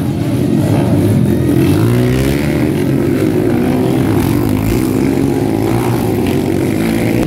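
Several dirt-bike engines running and revving as the bikes ride past one after another on a dirt trail, the pitch rising and falling with the throttle.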